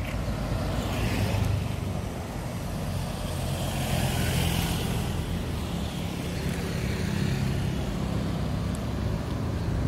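Street traffic: motor vehicles running and passing close by, with louder passes about a second in and again around four to five seconds in.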